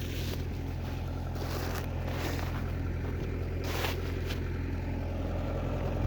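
Tractor engine running steadily, a low even drone, with a few short hissing gusts of wind or air over it.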